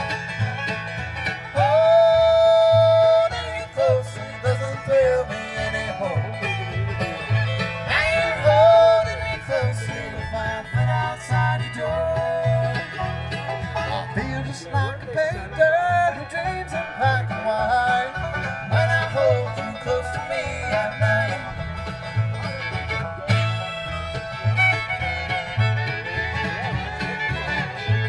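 A live bluegrass band plays an instrumental break of fiddle, banjo and guitar over a steady bass pulse, with no singing. The fiddle holds long sliding notes. The band is amplified through a Danley Sound Labs PA of SM80 loudspeakers and TH118xl subwoofers.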